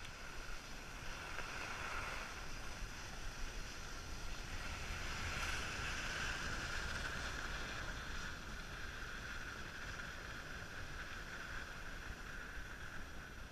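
Skis sliding over groomed snow, a steady hiss, with wind rumbling on the microphone.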